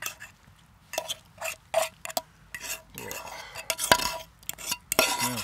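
Irregular scrapes and clinks of a metal utensil against a frying pan as stir-fried chicken and vegetables are scraped out onto an enamel plate.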